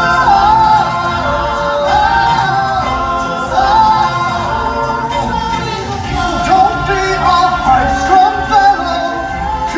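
A song from a stage musical: voices singing long, wavering notes over recorded backing music.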